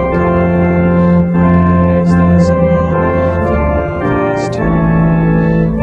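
Organ playing a hymn tune in sustained, slowly changing chords.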